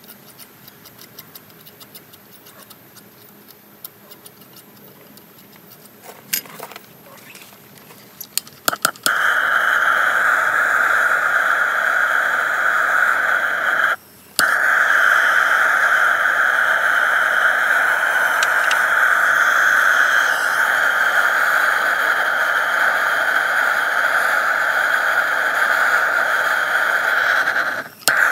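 Handheld gas torch: a few sharp clicks, then the flame lights about nine seconds in and burns with a loud, steady hiss as it heats a seized hex-shaft coupler to free it. The hiss cuts out briefly about five seconds later and again just before the end.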